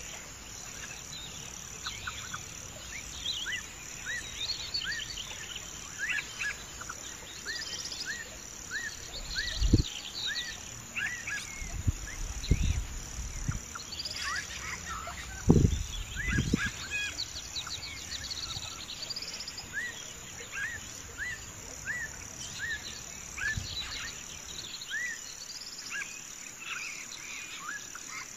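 Small birds chirping over and over in short calls, over a steady high insect trill. A few low dull thumps stand out, the loudest about ten and sixteen seconds in.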